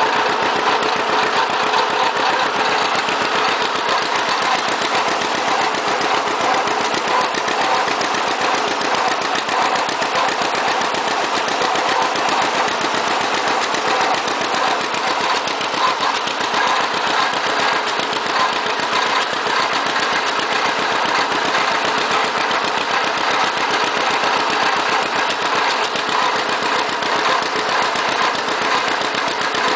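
John Deere 60 tractor's two-cylinder engine running steadily while driving, with a rapid, even exhaust beat.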